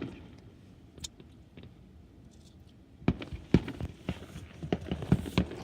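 Fireworks popping across the water: a single sharp pop about a second in, then a rapid run of pops and crackles from about three seconds on.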